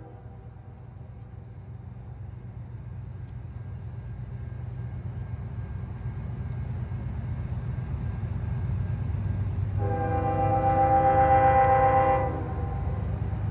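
Approaching freight train led by CSX GE ES40DC locomotives: a deep rumble that grows steadily louder, with one long multi-tone horn blast about ten seconds in lasting about two and a half seconds.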